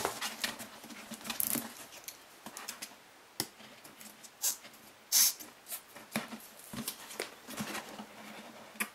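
Hands handling soft polyethylene-foam mask parts and a snap-off utility knife: scattered light rustles, taps and clicks, with a short sharp scratch a little after five seconds in as the loudest moment.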